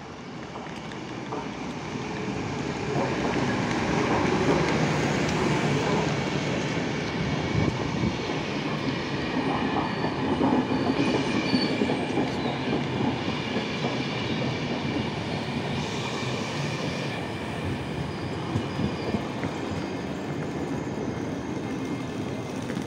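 A passenger train passing close by, its wagons' wheels clattering over the rails, with a faint squeal from the wheels. The sound builds over the first few seconds, then holds.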